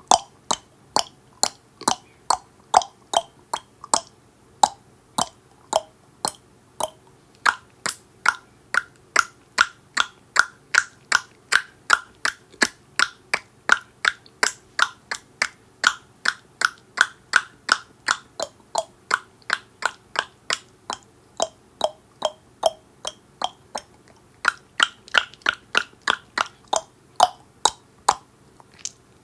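Tongue clicking: a steady run of sharp mouth clicks, about two or three a second, each with a hollow ring whose pitch moves higher and lower as the mouth shape changes.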